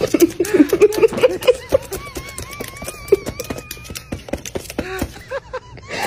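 A white-bellied caique on a laptop keyboard: quick clicks of the keys, with the parrot's speech-like chatter early on and a wavering whistle about two seconds in.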